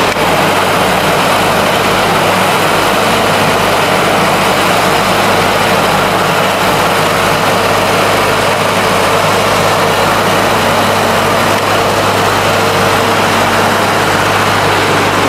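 Biomass gasification power plant machinery running steadily, a loud constant low hum with a dense mechanical din over it.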